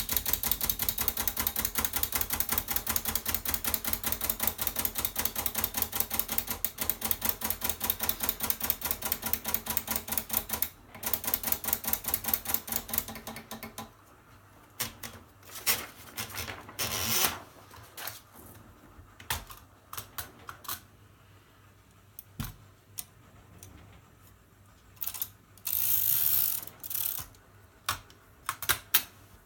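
Mercedes K45 portable manual typewriter being typed on: a fast, even run of keystrokes for about fourteen seconds, then scattered single key strikes and a couple of longer mechanical scraping sounds.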